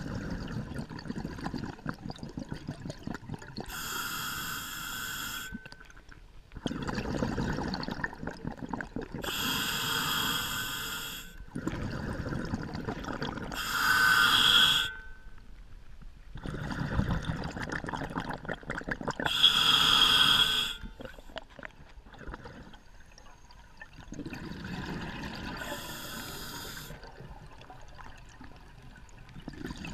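A scuba diver breathing through an open-circuit regulator, heard underwater: about five short hissing inhalations through the demand valve, each with a faint whistle, alternating with longer gurgling rushes of exhaled bubbles.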